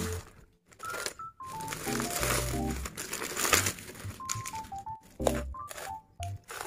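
Plastic bubble mailer and bubble wrap crinkling and rustling as they are handled, in short bursts, over soft background music with a simple stepping melody.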